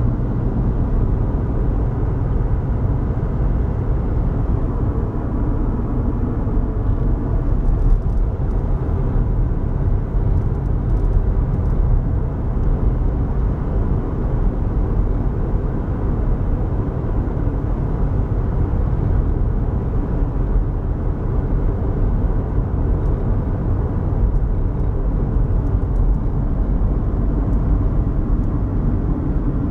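Steady low road rumble heard from inside a moving car's cabin: tyre and engine noise while driving.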